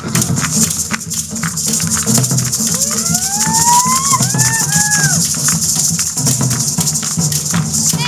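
Hula music with a steady low beat under the constant shaking of ʻuliʻuli feathered gourd rattles. About three seconds in, a high gliding tone rises and then falls in a few short arcs.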